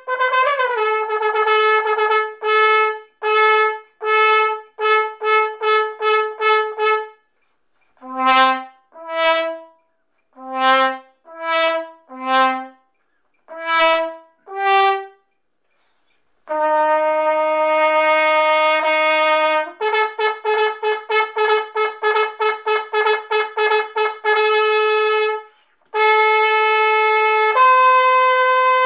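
Bell-front marching brass horn played solo: runs of short detached notes repeated on one pitch, a passage of lower separate notes with gaps between, a long held low note, another run of quicker repeated notes, and a sustained higher note near the end.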